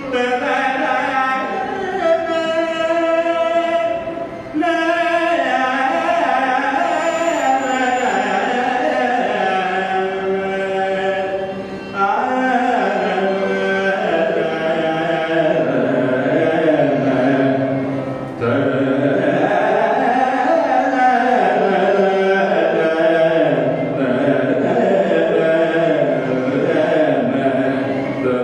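Male vocalist singing a Carnatic melody with violin accompaniment, in long gliding phrases broken by short pauses.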